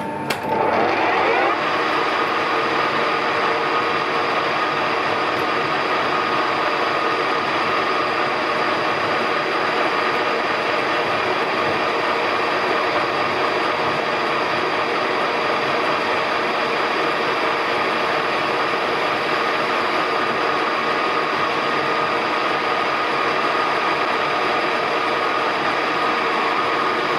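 Colchester geared-head lathe starting up, its pitch rising over the first second or so, then running steadily with a constant whine.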